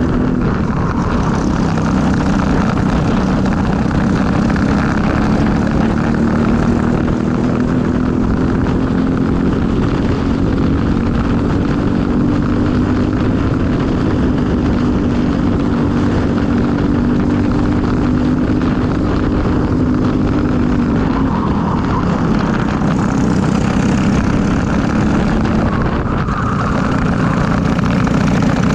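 Briggs & Stratton LO206 four-stroke single-cylinder kart engine running at race pace, heard onboard. Its pitch climbs slowly for about twenty seconds, drops sharply about three-quarters of the way through as the kart slows for a corner, then climbs again near the end.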